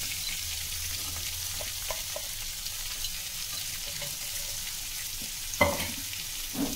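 Chopped red onion sizzling as it fries in butter with garlic, stirred with a slotted spatula, with a couple of louder spatula strokes against the pan near the end.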